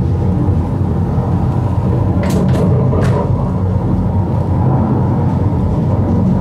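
Steady low rumble of a sightseeing tunnel car running along its track, heard from inside the car. Three short, sharp sounds come close together between two and three seconds in.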